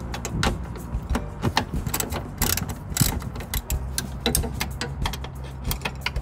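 Hand ratchet wrench clicking in quick, uneven runs as a bolt is worked, with a low steady hum underneath.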